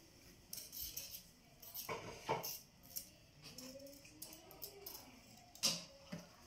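Fried dough balls being cut with kitchen utensils: scattered sharp snips and clicks, the loudest about a third of the way in and near the end.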